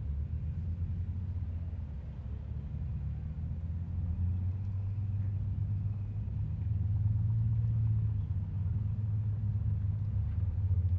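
Low, steady rumble of a UH-1 Huey helicopter flying past, growing louder about four seconds in.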